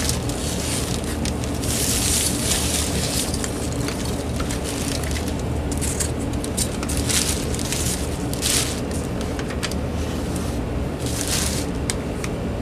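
Hands rummaging through foam packing peanuts in a cardboard box and pulling out plastic wrapping: irregular rustling and crunching that comes and goes, over a steady low background hum.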